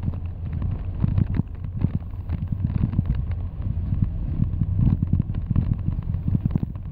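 Car driving along a narrow paved forest road, heard from inside: a steady low rumble of road and tyre noise with many short crackles and knocks.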